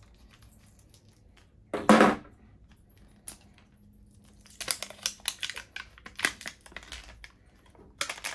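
Crinkling and crackling of the outer wrapper layer being peeled off a plastic Mini Brands capsule ball, in a dense run of crackles in the second half. A single louder burst comes about two seconds in.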